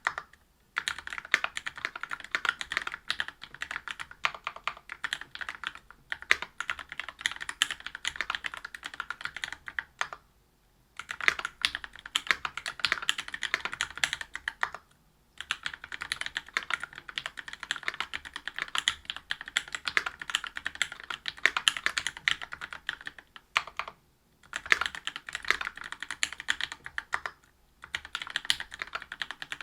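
Typing on a Whale 75 mechanical keyboard with stock Gateron Milky Red Pro linear switches (45 g), a brass plate and GMK doubleshot ABS keycaps. It comes in runs of several seconds of rapid keystrokes, broken by a few short pauses.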